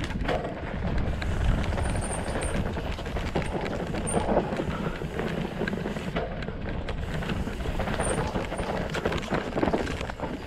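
Mountain bike running fast down a dirt singletrack: knobby tyres rolling over dirt and roots, with the chain and frame rattling in quick clicks over the bumps, over a steady low rumble.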